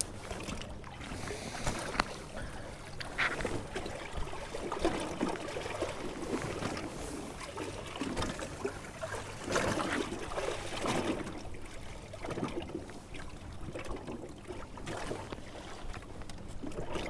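Small waves lapping and slapping against a fishing boat's hull in irregular swells.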